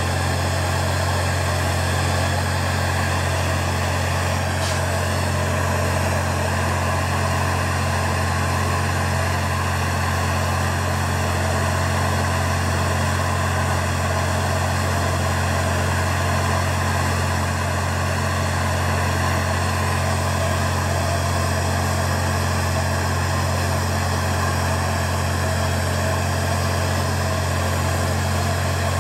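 Steady roar of a handheld gas torch flame held on a bent metal intercooler neck to heat it for straightening, over a steady low hum.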